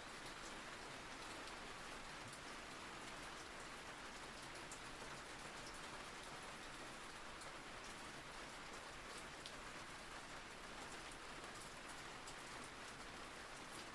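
Steady rain falling: an even, soft hiss with scattered light ticks of drops.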